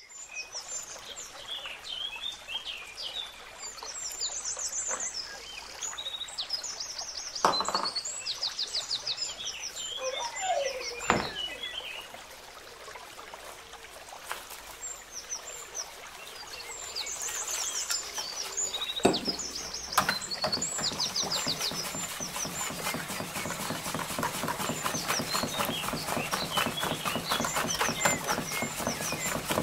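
Small birds chirping and trilling in the background, with a few single knocks. From about two-thirds of the way in, a wire whisk beats gram-flour batter in a plastic bowl in rapid, regular strokes.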